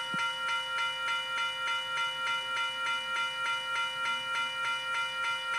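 Western Cullen Hayes Type 3 electronic railroad crossing bell sounding. It gives a steady, evenly repeating electronic ding of several fixed tones, several strokes a second.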